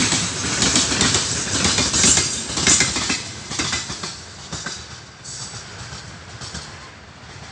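Freight train of open gondola wagons passing, its wheels clicking over the rail joints. The sound fades from about four seconds in as the last wagons pull away.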